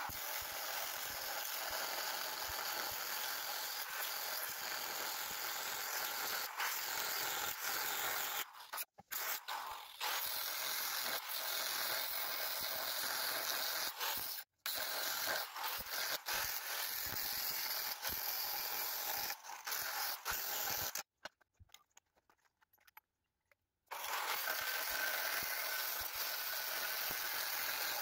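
Ryobi corded angle grinder with a cutoff wheel cutting through half-inch mild steel plate: a steady, hissing grind with a faint high whine. It breaks off briefly twice and stops for about three seconds a little past two-thirds of the way through.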